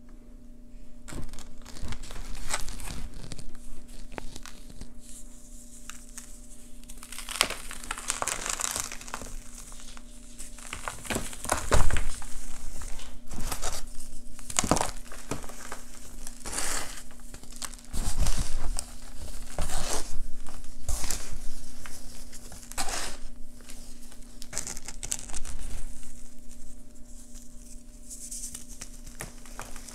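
Heart-shaped blocks of reformed gym chalk crushed and crumbled by hand: irregular grainy crunches and crumbling, loudest a little before halfway and again just past halfway. A faint steady low hum runs underneath.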